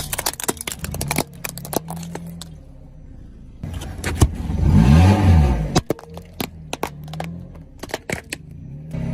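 Car engine running while something is crushed, with a run of sharp cracks and crunches. About halfway through, the engine note rises and falls once.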